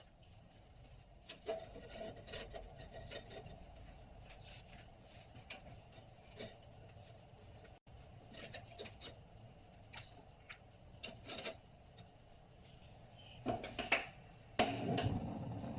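Kitchen food-preparation noises: scattered scrapes and light clicks of utensils being handled, with a few louder knocks near the end.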